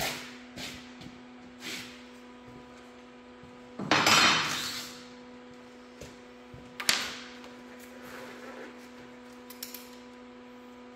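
Knocks and clatter of tools and metal parts being handled. A loud clatter about four seconds in rings on for about a second, and a sharp knock follows near seven seconds, over a steady low hum.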